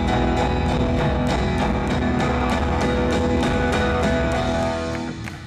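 Rock band playing live after the last sung line, with guitar over a steady drum beat and no voice; the music fades away near the end.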